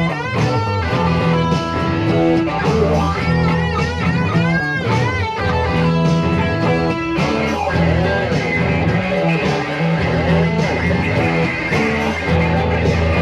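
Band music without singing: an electric guitar plays a lead line whose notes bend up and down, over a steady bass.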